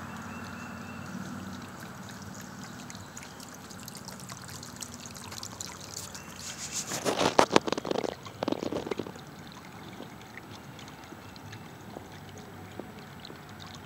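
Water trickling and bubbling from a glazed ceramic urn fountain over a steady low hum. About seven seconds in comes a two-second burst of rustling and knocks.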